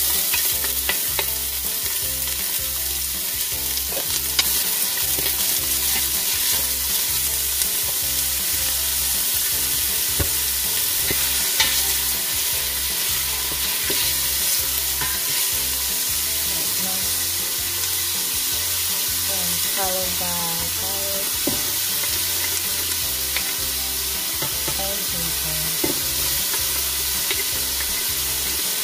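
Diced onions sizzling steadily in hot olive oil in a stainless steel pot, with a wooden spoon stirring and scraping them against the pot.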